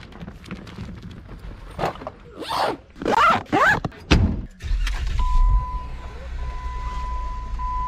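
Rustling and handling noises of gear being packed, then a heavy thump about four seconds in as the Jeep Wrangler's rear swing gate shuts. After it, the Jeep's engine runs low, heard from inside the cabin, with a steady high tone sounding over it.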